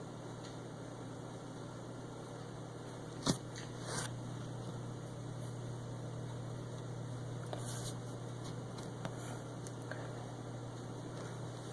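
Steady low electrical hum with background hiss, broken by one sharp tap about three seconds in, a softer knock just after, and a few faint clicks of small objects being handled.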